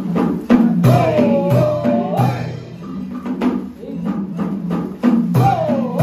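Traditional Vietnamese water puppet theatre music: drum and wood-block strikes in a steady rhythm, with a melody that bends and wavers in pitch, heard about a second in and again near the end.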